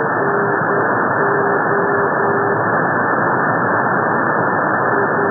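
Non-directional beacon's Morse code identifier on the longwave NDB band, received on an SDRplay RSPdx: a steady beep keyed on and off in short and long dashes over loud hiss of radio static. The keying stops for a couple of seconds in the middle and starts again near the end.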